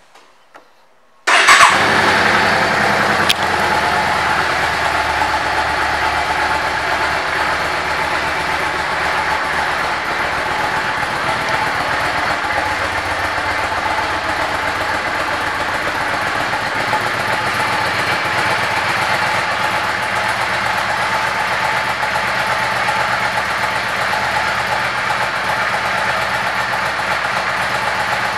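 Yamaha V Star 650's air-cooled V-twin starting about a second in, then idling steadily.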